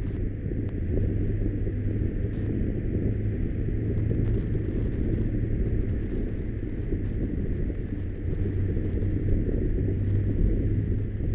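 Onboard sound of a motorcycle riding slowly through traffic: its engine running at steady low revs under a low wind rumble on the microphone.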